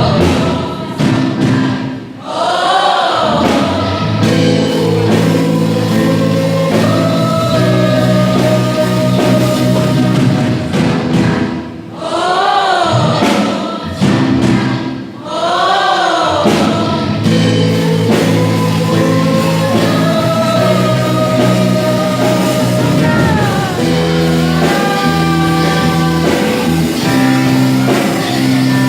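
Gospel worship song: choir-like voices singing sustained, wavering melody lines over held electronic chords and bass.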